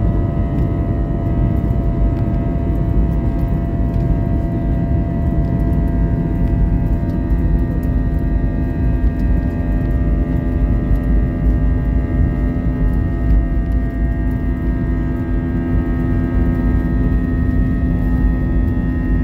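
Airbus A321 jet engines at takeoff thrust, heard inside the cabin over the wing: a steady loud rumble with several held whining tones from the engines, during the takeoff roll.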